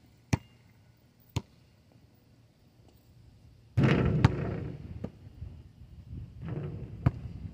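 A basketball bouncing on an asphalt court: single sharp bangs, two a second apart near the start and two more later on. From about halfway, a sudden rush of wind noise on the microphone sets in and slowly fades.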